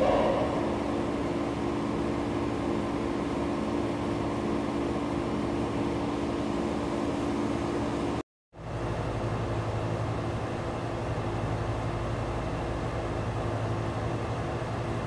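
Steady mechanical hum with a few low steady tones. It drops out for a moment about eight seconds in, then resumes as a deeper steady drone.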